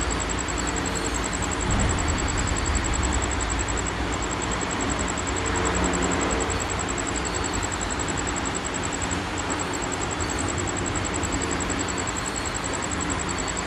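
Steady background noise with a low hum and a faint, thin high-pitched tone, no voices.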